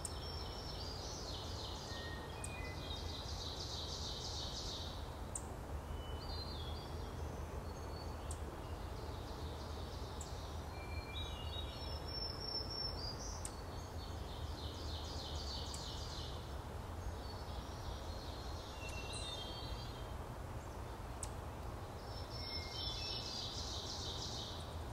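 Ovenbirds singing their 'teacher, teacher, TEACHER' song, a run of quickly repeated high two-part notes that swells in loudness, about six times, with sharp single chip notes scattered between the songs. A steady low rumble lies underneath.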